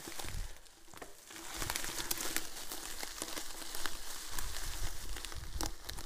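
Mountain bike riding over the forest floor: tyres crackling through dry leaves, twigs and low brush, with many sharp rattling clicks from the bike and a low rumble of wind and bumps that grows about a second and a half in.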